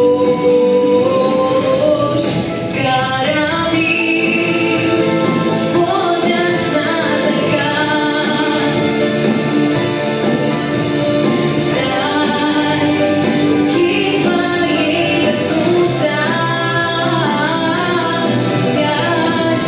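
A song with a voice singing a melody over instrumental accompaniment.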